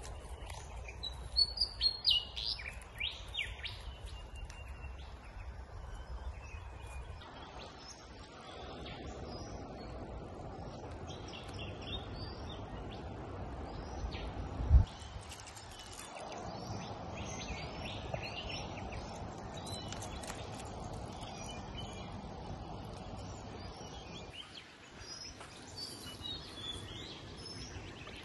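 Small birds chirping and calling repeatedly over steady outdoor background noise, with a single thump about halfway through.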